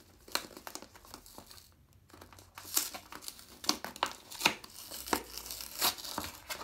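Cardboard pad box being torn open by hand: a quiet start, then from about two and a half seconds in a quick series of sharp crackling and tearing sounds as the top comes open.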